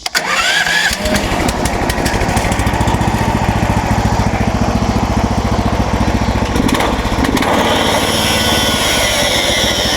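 MechMaxx SM32 bandsaw sawmill's gas engine starting up with a brief rising whine, then running steadily. A higher hiss joins about eight seconds in. The owner calls it the best the mill has sounded, everything now in alignment after repairs.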